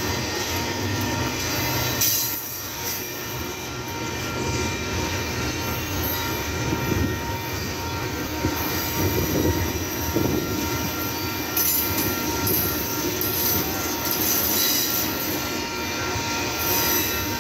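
Double-stack intermodal freight train's well cars rolling past on the rails: a steady rumble of wheels on track, with thin, steady, high-pitched wheel squeal running through it.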